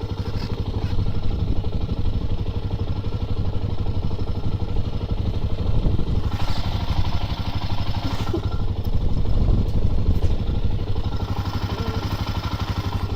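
ATV engine running with a steady, even pulse, and a brief swell of hiss about six seconds in.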